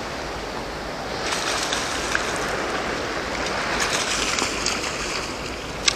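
Sea water washing against a concrete breakwater, with a hooked fish splashing at the surface; the splashing water grows louder about a second in.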